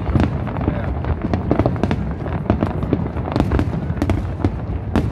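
Aerial fireworks display: a dense, unbroken run of shell bursts, several bangs a second overlapping over a constant low rumble.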